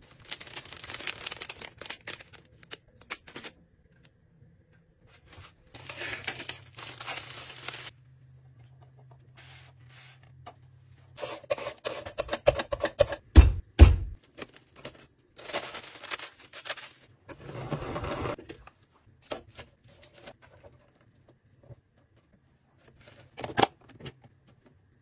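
Soft bread being torn apart by hand, a crackly tearing rustle. Then red cabbage is shredded on a plastic mandoline slicer in a run of quick scraping strokes, with two loud knocks as the slicer is struck. Near the end comes a sharp click as a plastic storage container's lid is pressed shut.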